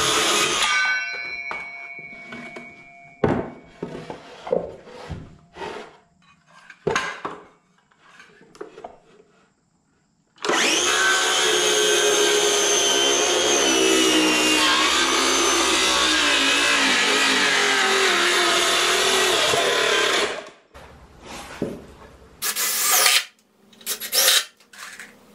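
DeWalt cordless circular saw finishing a cut through a wooden board, its blade whining as it spins down, followed by scattered knocks of the board being handled. About ten seconds in, the saw makes a second steady cut lasting about ten seconds. Near the end, a cordless drill runs in a few short bursts.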